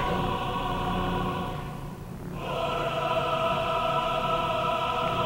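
Background choral music with a choir holding long sustained chords. It thins out briefly about two seconds in, then swells again.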